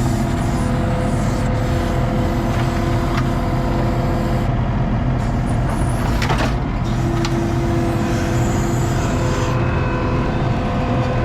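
ASV RT-40 compact track loader's engine running steadily, with a single brief knock about six seconds in.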